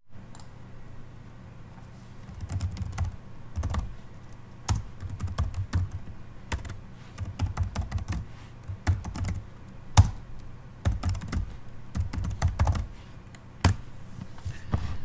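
Computer keyboard being typed on in irregular bursts of key clicks with short pauses between, one sharper key strike about ten seconds in.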